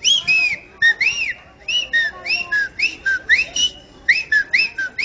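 Whistling used as mock speech: a rapid string of short whistles, each rising and falling in pitch, about three a second, in the rhythm of a spoken sentence.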